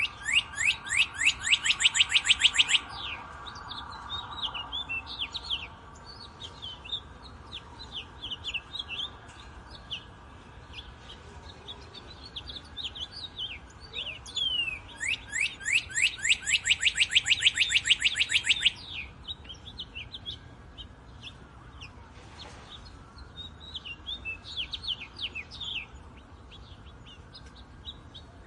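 Wild birds singing: two loud fast trills of about nine quick falling notes a second, each lasting about three seconds, one at the start and one about halfway through. Between them come scattered short high chirps.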